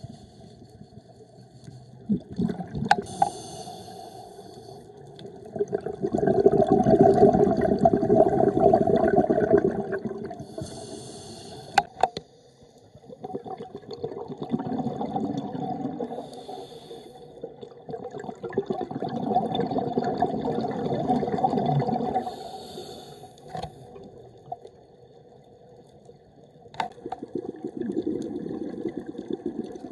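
Scuba diver breathing through a regulator underwater: a short hissing inhalation followed by a few seconds of bubbling exhalation, repeating about every seven seconds, with a few sharp clicks.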